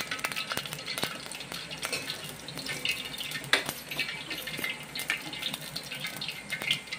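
Cooking oil sizzling and crackling in a steel pot on a gas burner, with many small pops and a sharper click about halfway through.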